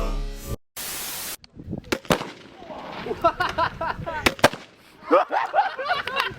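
A brief burst of hiss, then scattered single airsoft gun shots, sharp cracks a second or two apart, with voices between them.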